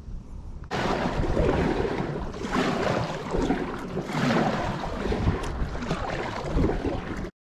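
Wind buffeting the microphone over water splashing and sloshing as a kayak is paddled across open water. It starts abruptly about a second in and swells and fades every second or two.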